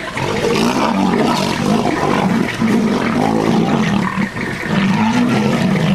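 Lions growling in a fight: a loud, deep, continuous growl with a short break about four seconds in.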